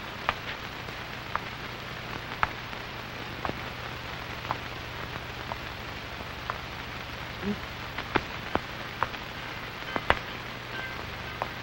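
Steady hiss with a low hum and scattered sharp clicks and pops, about one a second: the surface noise of an old film soundtrack with nothing else playing.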